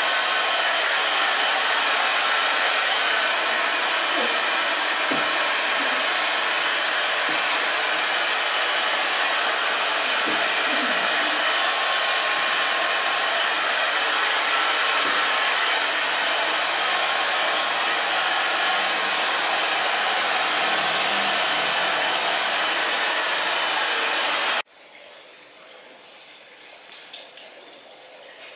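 Handheld hair dryer blowing steadily on wet hair, cutting off suddenly about 25 seconds in. Afterwards, faint rustling and scratching of fingers working through the hair on the scalp.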